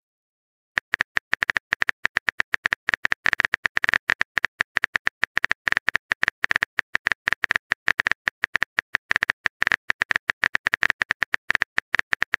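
Key clicks of a phone texting app's virtual keyboard as a message is typed, a rapid, even run of short ticks several a second, starting about a second in.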